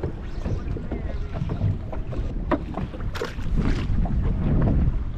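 Wind buffeting the microphone over water slapping against a small fishing boat's hull, with scattered light knocks and a short hissing rush about three seconds in.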